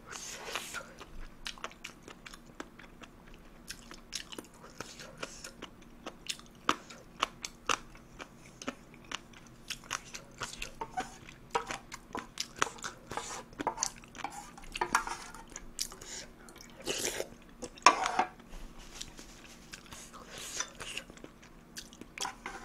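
Close-miked chewing and biting of spoonfuls of ppogeuli, crushed Shin Ramyun boiled in a pot. Wet mouth sounds with many short crisp clicks and crunches, and a couple of louder crunches about three-quarters of the way through.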